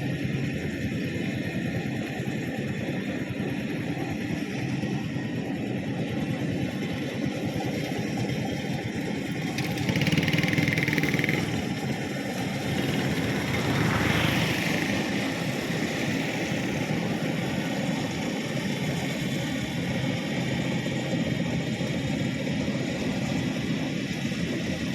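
Rice combine harvester running steadily in the field, its engine and threshing machinery making a continuous mechanical hum. It grows louder for a second or so about ten seconds in, and again briefly around fourteen seconds.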